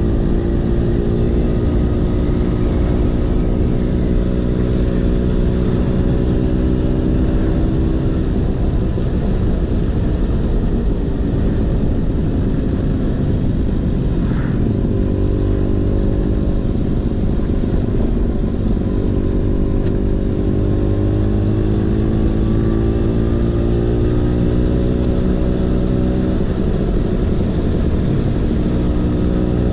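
Vespa PX 150's two-stroke single-cylinder engine running through a DRC Victory racing exhaust while riding, its pitch rising and falling gently with the throttle.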